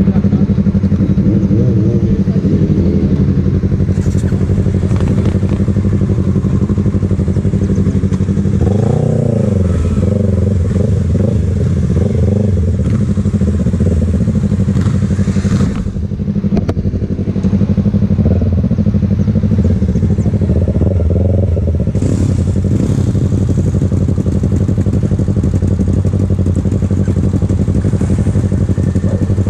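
Yamaha R3 parallel-twin engine with a full aftermarket exhaust idling steadily at a standstill, with several short revs that rise and fall in pitch.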